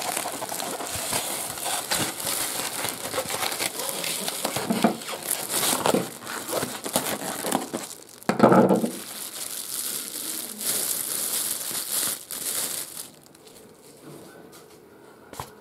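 Thin plastic bag crinkling and rustling as it is handled and pulled off a boxed statue. The crinkling is loudest about eight seconds in and dies down near the end.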